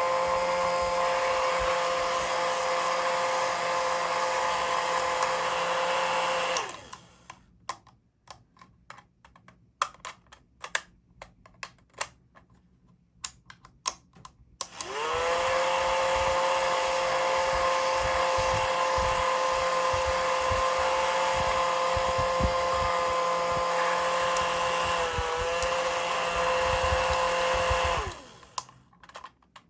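Small electric motor with a fan, running steadily with a whine over a rush of air. It winds down, then spins back up about halfway through after some light clicking and tapping, and winds down again near the end.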